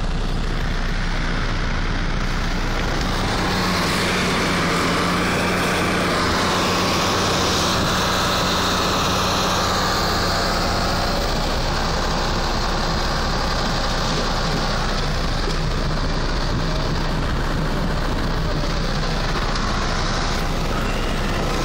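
Vehicle engine idling with a low steady hum under a loud, even rushing noise, heard from inside a car's cabin in a blizzard.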